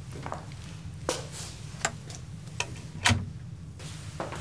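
Footsteps on a hard floor, a light click roughly every three-quarters of a second, over a steady low hum.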